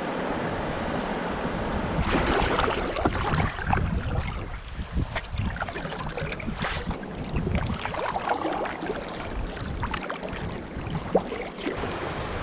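Water splashing and rushing, with wind buffeting the microphone; after about two seconds it turns choppier, with irregular short splashes and knocks.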